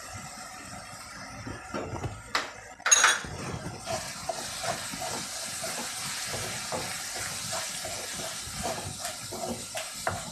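Onions, chillies and turmeric frying in coconut oil in a metal wok, a steady sizzle, with a spatula scraping and knocking against the pan as the mix is stirred. One sharper clink comes about three seconds in.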